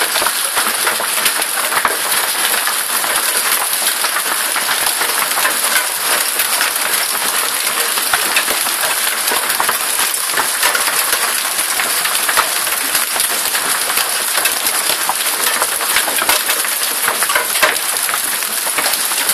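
Hail with heavy rain falling: a steady, dense patter of many small hailstone hits.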